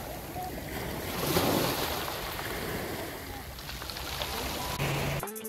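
Small waves washing in over a pebble shore, a steady surf hiss that swells about a second in. Near the end it cuts off as music begins.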